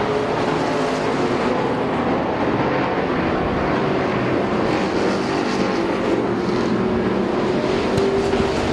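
A pack of street stock race cars running at speed around a short oval, with the loud, steady mixed drone of many engines passing together.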